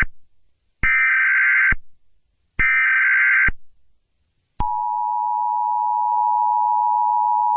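Emergency Alert System SAME header: two harsh data bursts about a second long and a second apart. About four and a half seconds in, the steady two-tone EAS attention signal begins. It opens an Emergency Action Termination (all-clear) alert.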